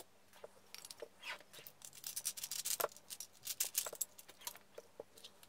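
Batteries being handled and fitted into the plastic battery compartment of a toy motorbike: a run of small, faint clicks and taps, busiest in the middle.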